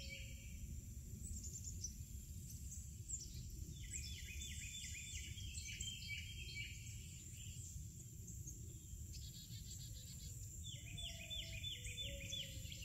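Outdoor nature ambience: birds singing in repeated runs of quick chirps over a steady high insect drone, with a low steady rumble underneath.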